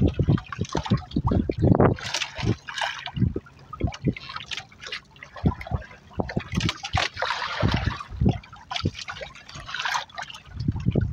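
Sea water sloshing and splashing against the hull of a small boat, with irregular low thumps.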